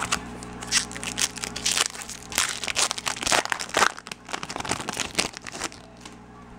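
Foil wrapper of a Bowman Chrome baseball-card pack being torn open and crinkled by hand: a run of irregular crackling rustles that dies away about a second before the end.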